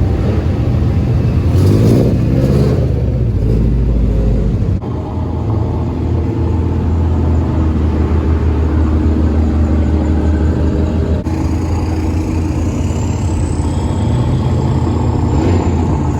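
Car engines running with a loud, steady low rumble and some revving, broken by abrupt changes about five seconds in and again about eleven seconds in.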